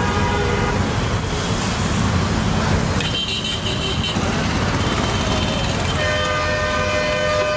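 Steady street traffic noise with vehicle horns honking: a short high horn about three seconds in and a longer, lower horn from about six seconds on.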